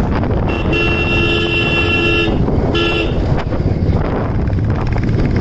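Royal Enfield Classic 350's single-cylinder engine running under way, over road and wind noise, while a vehicle horn sounds twice: a long two-tone blast of about a second and a half, then a short one.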